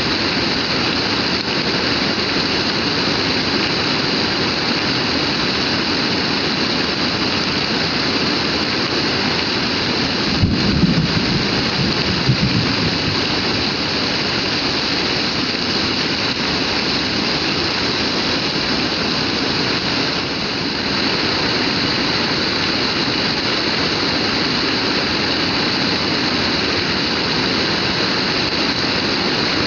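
Heavy rain pouring down in a dense, steady hiss. A short low rumble rises briefly about a third of the way in.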